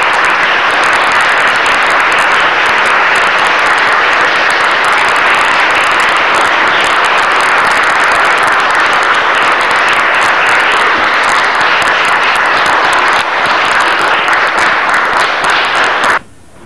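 Audience applauding steadily, a dense patter of many hands clapping, which cuts off suddenly near the end.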